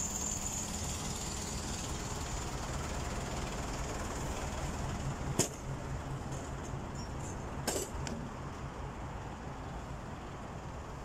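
Steady traffic noise of passing vehicles with a low engine hum, broken by two sharp knocks, one about five and a half seconds in and one near eight seconds.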